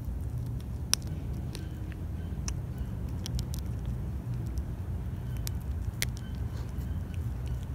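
Cat chewing and crunching a dead rat's foot: irregular sharp cracks and crunches, the loudest about a second in, over a steady low rumble.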